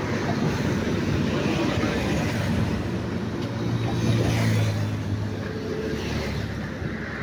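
Road traffic passing close by on a bridge: motorcycles and cars running past in a continuous rumble. One engine's hum stands out from about three to five seconds in.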